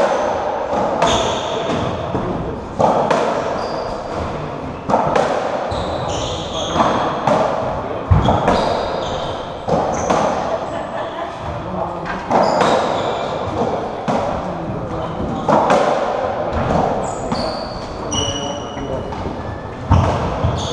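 A racketball rally on a squash court: the hollow rubber ball struck by rackets and smacking off the walls, a sharp crack with a booming echo every one to two seconds. Short high squeaks of shoes on the wooden floor come between the shots.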